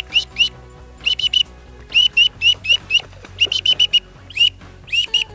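Black-bellied whistling duck call blown by mouth, imitating whistling ducks coming in to land. It gives runs of short, high whistled notes, several a second, each sliding up quickly and then holding. Background music plays underneath.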